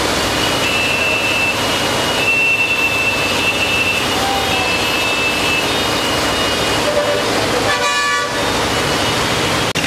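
Heavy rain and floodwater rushing across a road make a steady noise. A high-pitched vehicle horn sounds several times, about a second at a time, and another horn honks briefly near the end.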